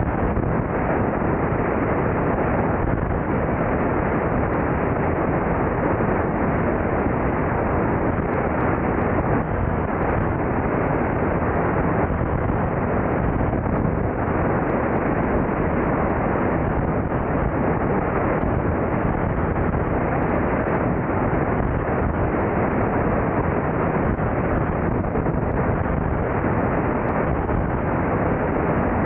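Steady, loud rush of airflow buffeting the microphone of a camera mounted outside a light single-engine plane in flight, blended with the drone of the Beechcraft Debonair's engine and propeller.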